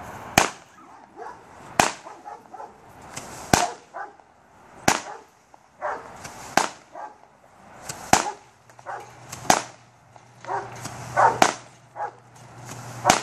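A 16-shot Boomers 'Anti-Tank Mine' consumer fireworks cake firing: about nine sharp shots, one roughly every one and a half seconds, each followed by smaller pops and echoes.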